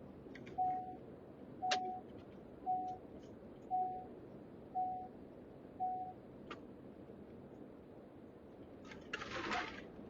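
Six short, even beeps at one pitch, about one a second, stopping after about six seconds, heard inside a car's cabin over the low hum of the drive. These are typical of a car's turn-signal indicator chime as the car comes up to a T intersection. A brief rustle of noise follows near the end.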